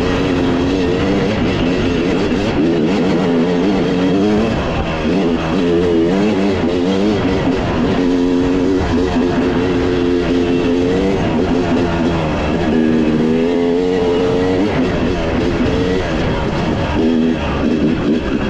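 Rock music with guitar playing, with a vehicle engine running underneath, its pitch rising and falling.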